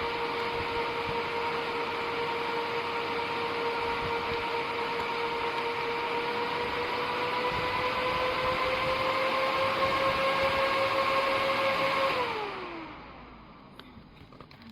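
Small electric fan of a fan-vest set running, a steady high whine over rushing air. The pitch creeps up a little about seven seconds in; about twelve seconds in it is switched off and the whine falls away as the fan spins down.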